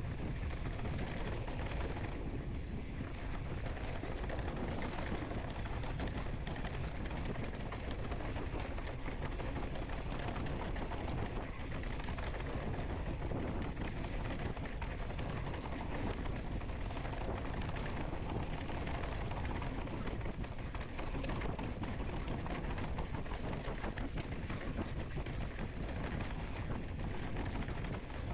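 Wind rushing over the camera microphone while mountain bike tyres roll over a dry dirt and rock trail, with the bike rattling over bumps.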